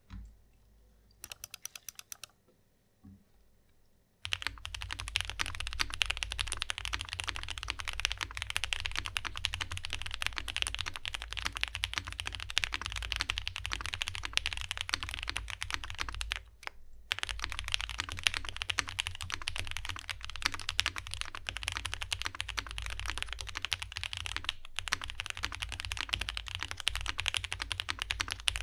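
Fast, continuous typing on a Space80 Apollo mechanical keyboard with C3 Banana Splits linear switches lubed with Krytox 205g0, in a polycarbonate plate with foam inside and GMK keycaps. A short run of clicks comes about a second in, then it is quiet until about four seconds in, when steady typing starts and runs on with one brief pause a little past halfway.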